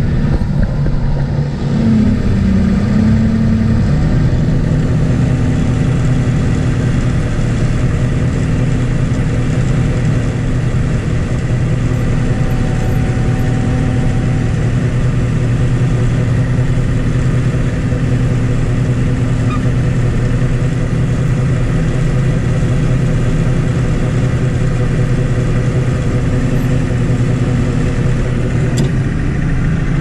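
Combine harvester running steadily under load while its unloading auger empties soybeans from the grain tank into a gravity wagon, heard from inside the cab.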